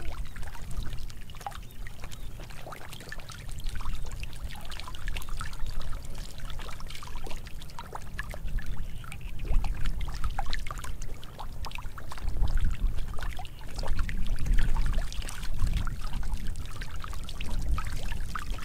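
Shallow muddy water running and trickling across a field, broken by many small irregular splashes as catfish thrash and wriggle through it. A low rumble grows stronger past the middle.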